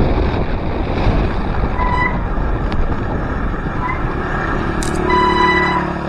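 Wind rushing over the action camera's microphone as a bicycle descends and slows down. Short high-pitched beeping tones cut in about two seconds in and near four seconds, and a longer one about five seconds in.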